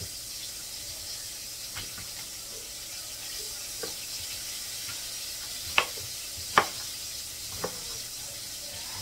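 Whiting fillets frying in a deep fryer, a steady sizzle, under a knife cutting cabbage on a wooden cutting board: five sharp knocks a second or two apart, the loudest two a little past the middle.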